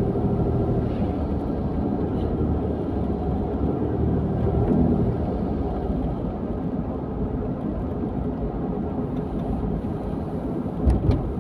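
Vehicle driving along a road: a steady low rumble of engine and road noise, with a couple of short knocks near the end.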